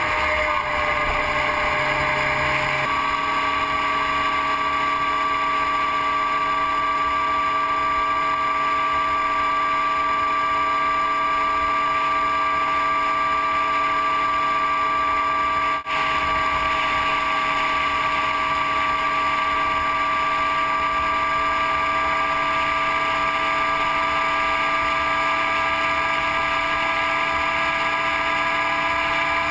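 Motorcycle engine running steadily at highway cruising speed over wind and road noise, its note creeping slightly higher in the second half. The sound briefly drops out about halfway through.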